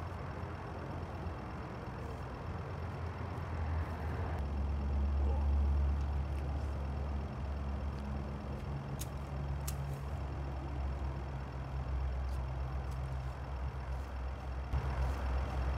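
Steady low engine rumble, like an idling motor, growing louder about four seconds in, with two short faint clicks near the middle.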